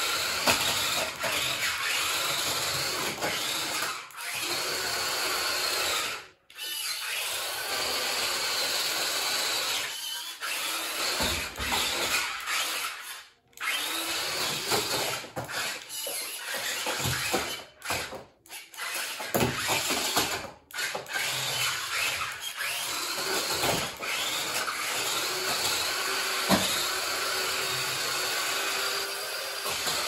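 Small electric drive motors and plastic gearboxes of a double-sided stunt RC toy car whirring as it drives over a tiled floor. The whine shifts in pitch with the throttle, and the noise cuts out briefly about five times as the car stops and restarts.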